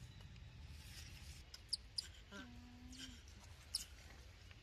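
Young macaques calling: three sharp, high squeaks, with a short, level, coo-like call about halfway through.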